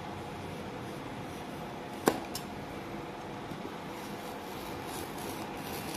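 Utility knife blade cutting through a thin wooden sheet, with a sharp click about two seconds in and a smaller one just after, over a steady fan-like hum.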